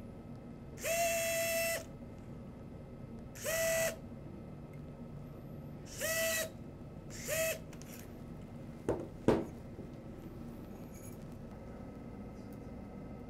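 Powered surgical wire driver running in four short bursts at a steady speed as it drives a guide wire into bone: the first about a second long, the rest about half a second each. Two sharp clicks follow about nine seconds in.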